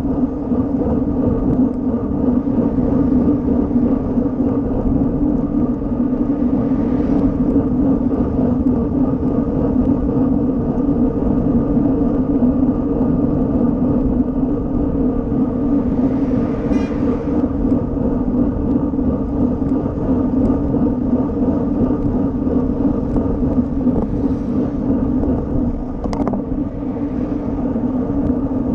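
Steady wind rush and rumble on an action camera riding on a road bicycle, with road and tyre noise, at about 25 km/h. A brief rising noise comes about 16 seconds in, and a sharp click about 26 seconds in.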